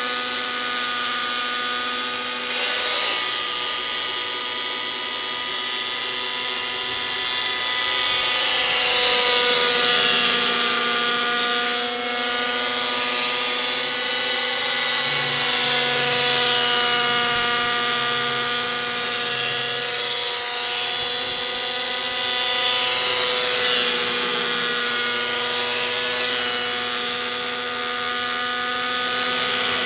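Align T-Rex 600 nitro radio-controlled helicopter in flight, its O.S. 55 glow engine and rotors making a steady whine. The pitch bends up and down a little, and the sound swells as it passes.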